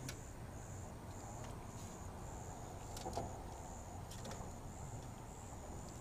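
Faint steady low hum of a refrigeration vacuum pump running while it evacuates the AC system. A high, even chirp repeats about twice a second, and there are a few light clicks as the circuit board is handled.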